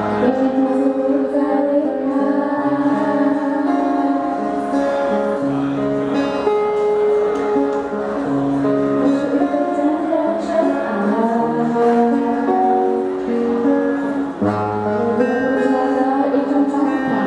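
Two female voices singing a song into microphones, accompanied by an acoustic guitar.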